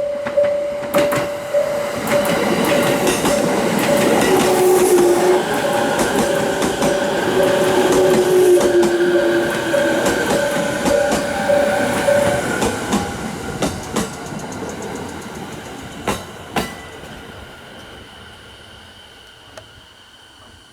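Japanese level-crossing alarm ringing in a steady pulse while an electric train runs past, its wheels clicking over rail joints. The alarm stops about twelve seconds in, and the train noise fades away.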